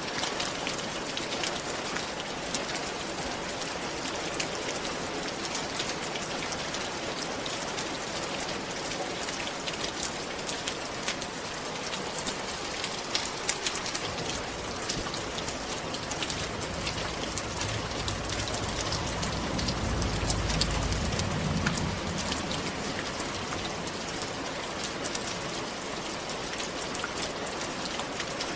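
Steady rain falling on a roof, a dense patter of drops hitting it. A low rumble swells briefly about two-thirds of the way through.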